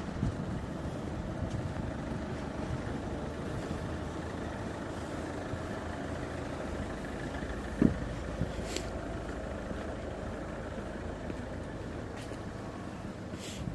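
Car traffic running steadily in a town street, with a single sharp thump about eight seconds in.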